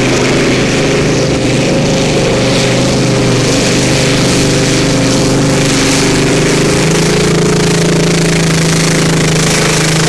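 Modified-class pulling tractor's engine running flat out under load while dragging the weight sled, a loud, steady drone that steps up slightly in pitch about seven seconds in.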